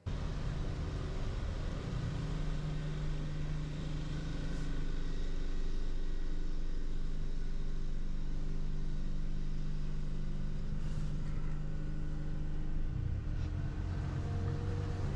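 Small motor boat's engine running steadily under way, heard from the helm over a steady hiss. About 13 seconds in, the engine note drops lower.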